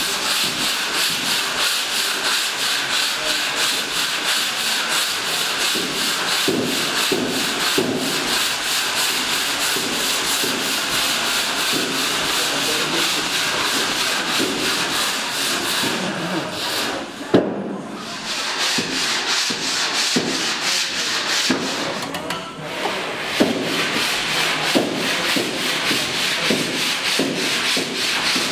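Hand sanding on the primed, filled surface of an aluminium speedboat hull: a steady scratchy hiss made of rapid, rhythmic back-and-forth strokes. The strokes pause briefly with a sharp knock about two-thirds of the way through, then resume.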